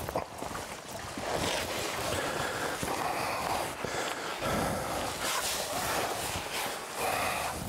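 A caver's suit rustling and scraping against rock in irregular bursts as he squeezes down into a narrow cave entrance, with small knocks of gear and boots on stone.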